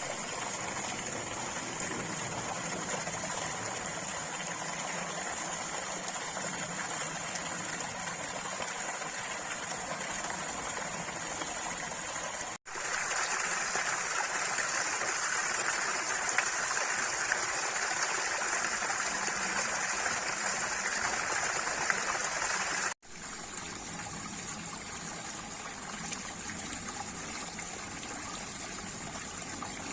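Running water, a steady flowing stream. It cuts off abruptly twice, about 13 and 23 seconds in, each time switching to a slightly different stretch of running water; the middle stretch is the loudest.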